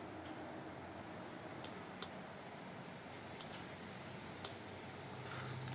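Four short plastic clicks, spread a second or so apart, from handling a RunningSnail hand-crank emergency radio.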